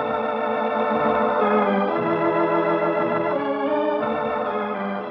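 Organ music holding sustained chords that shift slowly every second or so: the musical cue that opens the act of an old-time radio drama.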